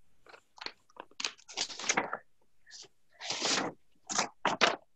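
Sheets of paper being handled and shuffled: a string of short rustles and crinkles, the longest a little past three seconds in.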